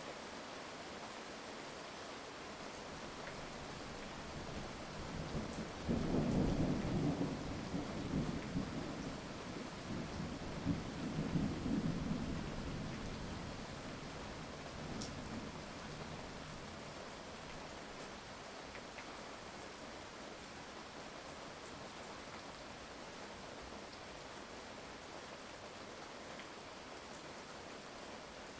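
Steady heavy rain with a roll of thunder that cracks in suddenly about six seconds in, rumbles in several swells, and fades away, leaving the rain alone for the rest.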